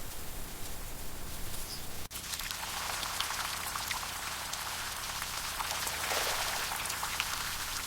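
Rain falling steadily: a dense hiss dotted with many small, sharp drop ticks. There is a brief break about two seconds in, and before it a fainter, smoother hiss.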